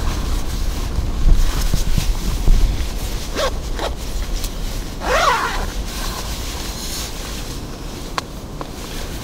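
Jacket zipper being pulled in a few short strokes, the longest about five seconds in, with puffy nylon jacket fabric rustling and a low rumble underneath.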